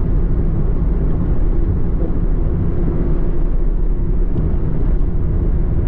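Steady low rumble of a road vehicle driving on a wet highway, heard from inside the cabin: engine and tyre noise on wet asphalt.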